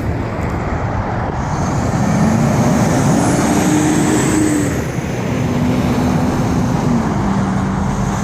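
Moving car: steady road and engine noise, with an engine note that rises about two seconds in and falls back before five seconds, then holds lower.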